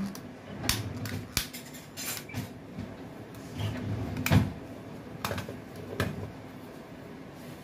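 Metal kitchen utensils and dishes clinking and knocking, several separate sharp knocks about a second apart, the loudest a little past the middle.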